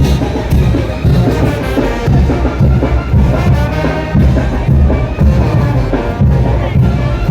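Mexican brass banda playing a son de chinelo: trumpets and trombones over a pulsing bass and drum beat.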